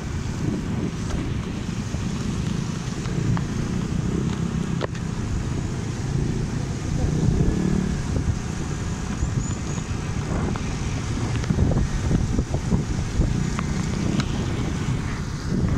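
Motorcycle engine running at riding speed, its pitch rising and falling with the throttle, mixed with road noise.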